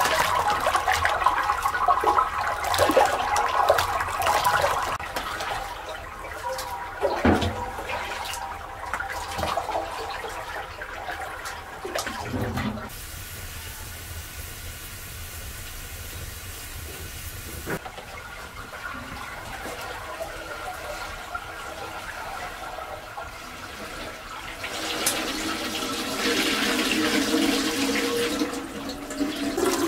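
Water splashing and sloshing as it is poured over mashed sprouted wheat in a cloth-lined basin and stirred by hand. It goes quieter partway through, then streams and pours again near the end as the wet cloth bundle of wheat is wrung out over a pot.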